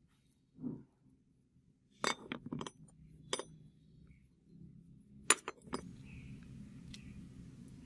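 Metal parts of a pipe cutter (pins, bolts, carriage and cast frame) clinking against each other and against a concrete floor as they are handled and set down: a few sharp clinks about two seconds in, one more a second later, and the loudest cluster a little past five seconds.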